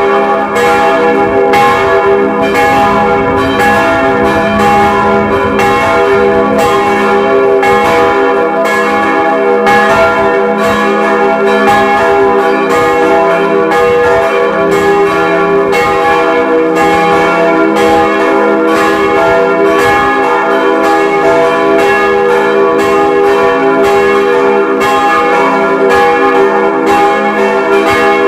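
Church bells swung by an electric motor, ringing continuously. Evenly repeated strikes blend into a dense, overlapping ring of sustained tones.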